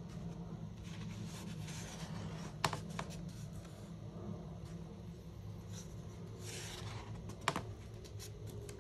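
Two page turns in a hardcover photo book: each a papery swish of the sheet sliding over, ending in a sharp snap as the page falls flat, one about two and a half seconds in and the other near the end. A low steady hum lies underneath.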